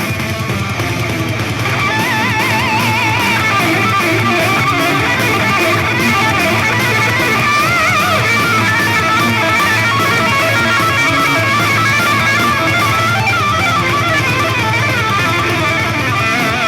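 Rock song with electric guitar and drums playing through a JBL Flip 6 portable Bluetooth speaker, picked up by a microphone beside it. A melody line with wide vibrato rides over the band, and the music gets a little louder over the first two seconds.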